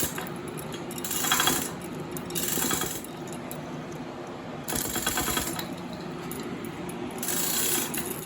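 A lifting hoist is worked in about four short bursts of metallic rattling and clicking, raising an engine's cylinder head off the block.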